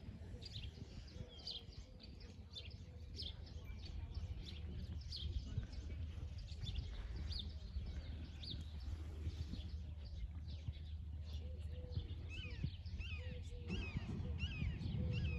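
Small birds chirping and calling repeatedly, short high notes scattered throughout and quicker twittering near the end, over a low steady rumble that grows louder near the end.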